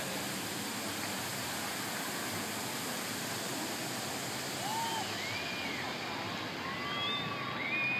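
Rushing hiss of the Dubai Fountain's water jets and spray falling back onto the lake, its upper hiss thinning in the second half as the jets shut down at the end of the show.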